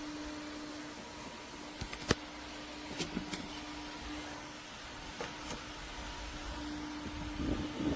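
Small rechargeable clip-on fan running with a steady hum and a whir of air. A few sharp clicks come through, the loudest about two seconds in, with more around three and five seconds in, and a low rustling rumble near the end.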